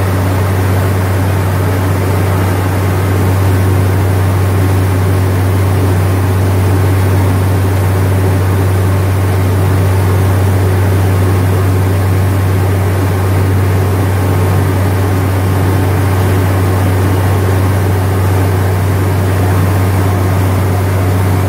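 Truck-mounted water-well drilling rig running steadily while boring a borehole, its engine giving a loud, constant low drone.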